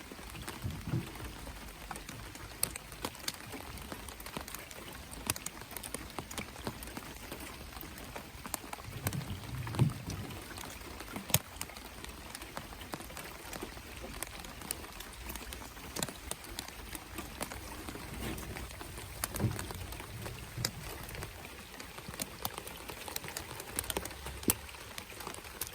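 Steady rain falling, with many scattered sharp ticks of drops striking close by. A few short, low, dull sounds stand out, the loudest about ten seconds in.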